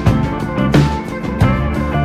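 Background music: a rock track with electric guitar and a drum kit keeping a steady beat.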